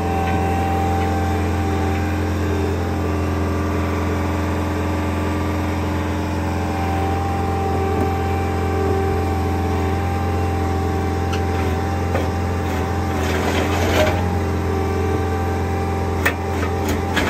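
Compact track loader's diesel engine running steadily under load, driving an 18-inch hydraulic auger as it bores a footing hole into poor soil. A few sharp knocks and clicks come in the last few seconds.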